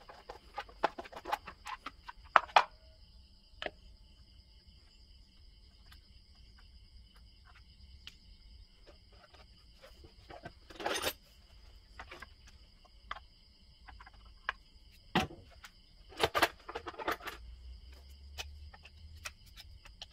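Scattered plastic clicks and knocks as the air-filter cover is unclipped from a chainsaw and its parts handled, the sharpest about two and a half seconds in and a cluster near the end. Behind them, a steady high-pitched insect trilling.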